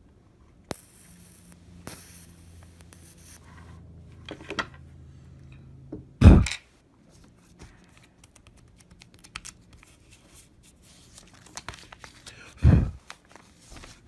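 Scratchy, tearing-like rustling from handling, with a low hum under it for the first few seconds, then two loud short thuds about six seconds apart.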